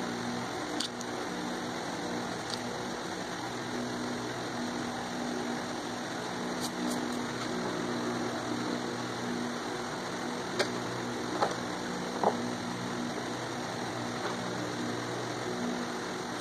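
A steady low machine hum, like a fan or motor running, with three short clicks or taps a little past the middle.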